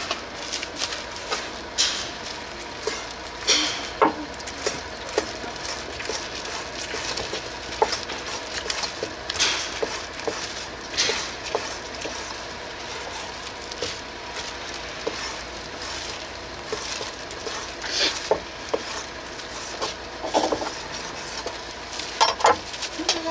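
Food preparation: scattered clinks and knocks of utensils and dishes over a steady sizzling hiss.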